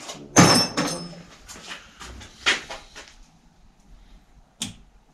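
Small metal bicycle parts and tools being handled on a workbench: a loud metallic clatter with a brief ring about half a second in, a few softer knocks, then two short sharp clicks near the end.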